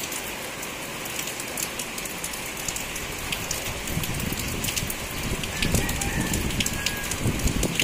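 Heavy rain falling on banana leaves: a steady hiss dotted with crisp drop ticks. From about halfway through, gusts of wind buffet the microphone with low rumbling surges.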